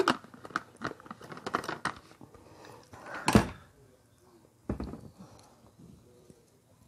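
Close-miked eating sounds: wet mouth clicks and smacks as ripe mango is bitten and sucked, with the loudest burst about three seconds in and another near five seconds.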